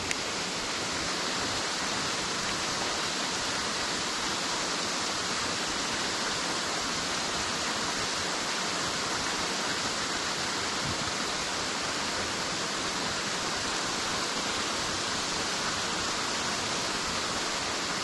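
Waterfall rushing into the pool: a steady, even hiss of falling water that does not let up.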